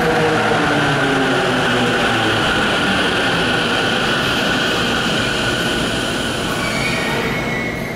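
JR Keiyō Line electric train running along the station platform, a loud steady rumble and rush with motor tones that fall in pitch in the first couple of seconds. The noise eases off near the end.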